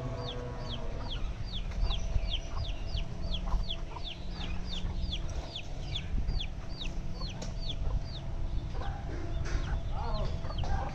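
A small bird chirping over and over, short high notes that fall in pitch, about three a second, thinning out near the end, over a steady low rumble.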